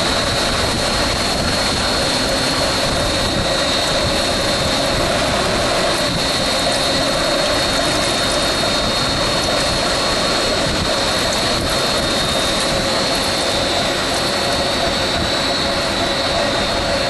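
Sealing-strip extrusion line running: loud, steady machine noise with a constant high whine over it.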